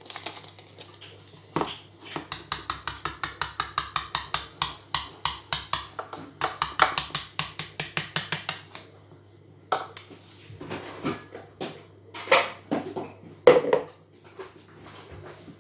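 Wire balloon whisk beating a thick flour-and-egg-yolk paste in a plastic mixing bowl, about five quick, even strokes a second. The beating stops about nine seconds in, and a few separate knocks and clatters of bowl and whisk follow.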